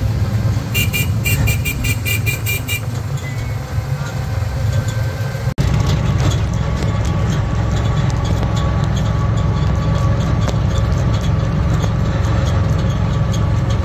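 A motor vehicle's engine runs steadily, heard from on board while riding, with a light rattling tick. About a second in there is a quick run of high beeps, about four a second for two seconds.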